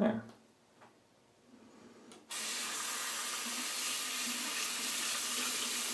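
Bathroom sink tap turned on a little over two seconds in, then water running steadily into the basin. A brief knock sounds at the very start.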